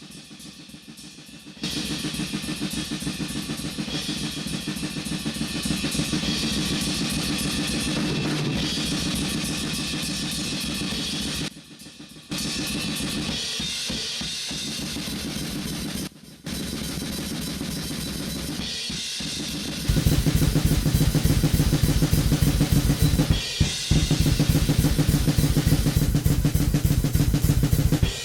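Playback of a metal drum kit recorded with a single room wall mic and run through a Lindell 7x-500 FET compressor: fast, dense kick, snare and cymbal hits, with two short breaks, and fuller and louder in the low end from about twenty seconds in.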